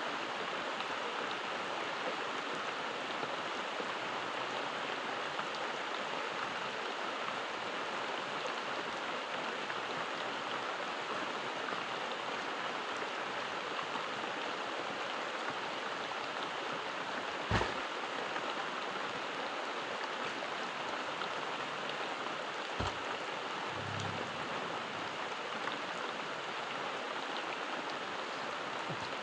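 Steady rain falling, an even hiss of drops, with a dull knock about two-thirds of the way in and a fainter one a few seconds later.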